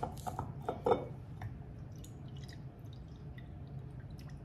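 Glassware and bottles being handled on a granite countertop: a few sharp clinks and taps in the first second, the loudest about a second in, then faint scattered ticks over a low steady hum.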